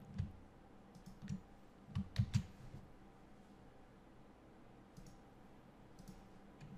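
Computer mouse clicking: a few short clicks in small groups in the first two and a half seconds, then two faint single clicks near the end.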